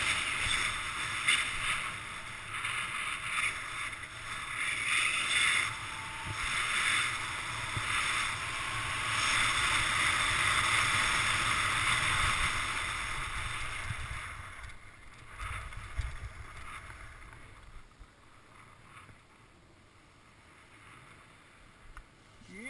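Edges scraping and hissing over packed, groomed snow on a fast downhill run, with wind on the microphone. The sound fades away over the last few seconds as the rider slows to a stop.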